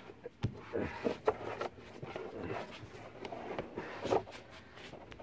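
Cardboard baffle and loose cellulose insulation rustling and scraping as a hand pushes the baffle down into the attic eave, with a few light knocks and clicks, the sharpest about half a second in.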